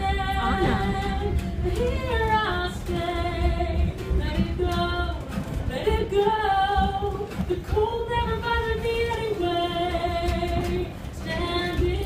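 A woman singing live with acoustic guitar accompaniment, holding long sustained notes, over a steady low rumble.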